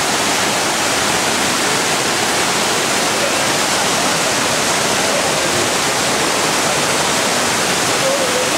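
A tall waterfall and its white-water outflow heard up close: a loud, steady rush of falling water that doesn't let up.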